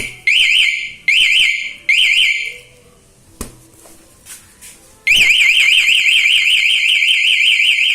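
Motorcycle anti-theft alarm's buzzer sounding a fast warbling siren, set off by a tap on the locked bike. It sounds in short repeated bursts that stop about two and a half seconds in. After a single sharp click, it starts again about five seconds in as an unbroken warble that keeps going until the alarm is switched off.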